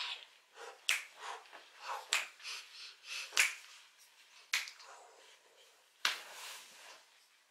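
Finger snaps in a steady beat, about one every 1.2 seconds, with faint vocal sounds between them, then a breathy hiss lasting about a second near the end.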